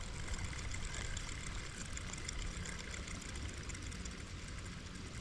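Steady hiss of falling rain, with a low steady rumble underneath.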